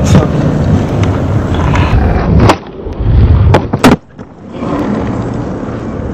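Skateboard wheels rolling over concrete with a loud, rough rumble. A sharp clack about two and a half seconds in and two more close together just before four seconds; right after them the rumble briefly drops away, then comes back.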